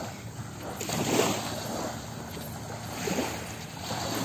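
Small sea waves lapping and washing up on a sandy shore, swelling about a second in and again near three seconds, with some wind on the microphone.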